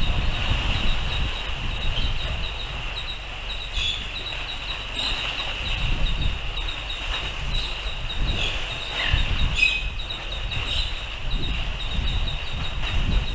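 Wind gusting over the microphone in uneven low rumbles. Above it runs a steady high-pitched chirring, with a few brief chirps and a short falling whistle about nine seconds in.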